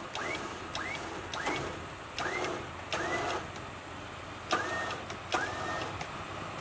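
Electric winch motor run in short repeated pulls, each a click followed by a brief rising whine. They come about every two-thirds of a second, spacing out toward the end, as it winches the stuck Jeep out. A low steady engine hum runs underneath.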